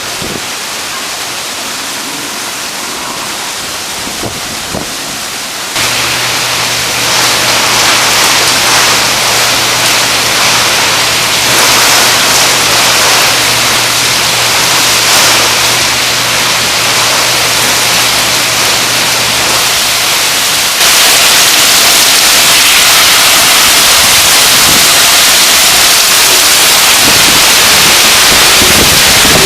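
Tropical storm wind and driving rain as a loud, steady rush of noise, with wind buffeting the microphone. The sound steps up abruptly about six seconds in and again about twenty-one seconds in, and a low steady hum runs between those two points.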